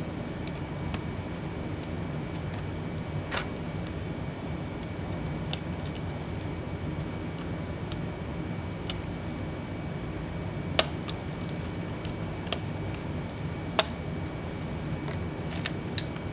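Scattered small, sharp clicks and taps of tools and laptop parts being handled during disassembly, the loudest about 11 and 14 seconds in, over a steady low background hum.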